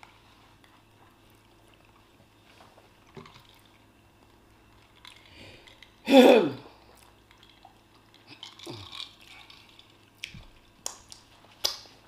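Mukbang eating and drinking sounds: a man drinking water from a glass, with soft mouth and chewing noises. About six seconds in comes one short loud voiced sound falling in pitch, a weaker one follows, and a few light clicks come near the end.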